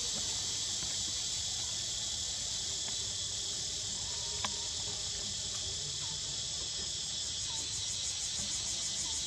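Steady, shrill chorus of insects with a fast pulsing texture, with one sharp click about four and a half seconds in.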